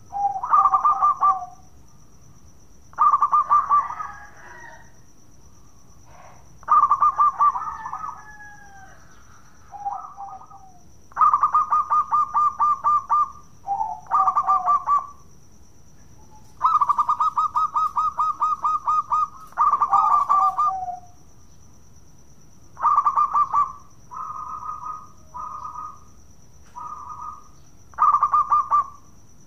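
Zebra dove (perkutut) singing: repeated phrases of fast, rolling staccato coos, several ending in a lower note, a couple of seconds apart, the longest lasting about three seconds. A steady high thin tone runs underneath.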